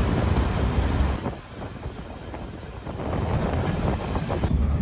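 Heritage diesel multiple unit running along the line, heard from on board: a steady low rumble of engine and wheels that drops quieter about a second in and picks up again about three seconds in.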